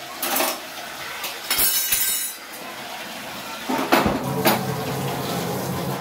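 Stainless steel bowls and utensils clinking and knocking against each other in a kitchen sink as they are washed by hand. Near the end a tap runs steadily over them and stops abruptly.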